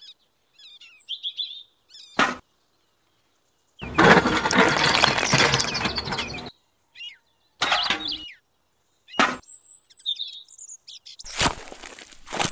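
Short, abruptly cut bursts of noise from handling a miniature toy cement mixer and wet mortar. The longest burst starts about four seconds in and lasts some two and a half seconds. High bird chirps come in the quiet gaps.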